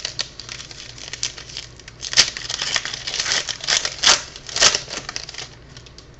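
Crinkling of a plastic card-pack wrapper being handled and torn, with a few sharp crackles near the middle.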